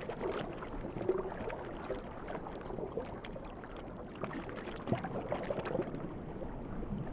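Steady wash of moving water as heard underwater, with small irregular louder moments, the clearest about five seconds in.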